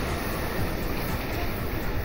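Gusty wind noise on the microphone beside a railway line, over the fading low rumble of a just-passed electric commuter train.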